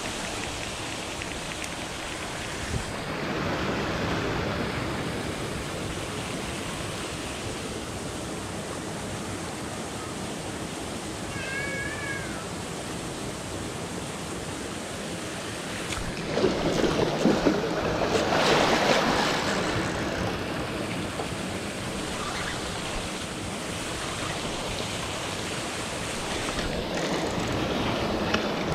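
Steady rushing spray of a pond's fountain aerator. A short wavering call sounds near the middle, and a louder crackly stretch comes a little past halfway.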